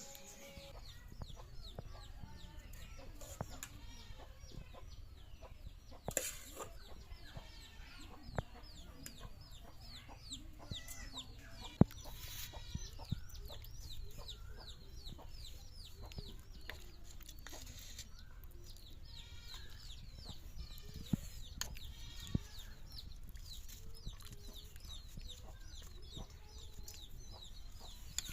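Chickens clucking amid a lot of quick, high chirping, with a few sharp knocks.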